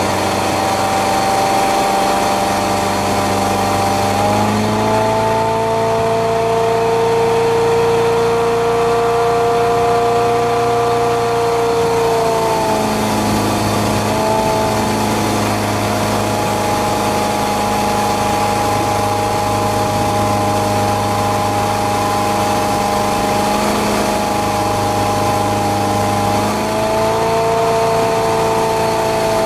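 A 1973 Caravelle fishing boat's rebuilt engine running under way. Its pitch rises about four seconds in as the revs come up, drops back about twelve seconds in, and rises again near the end.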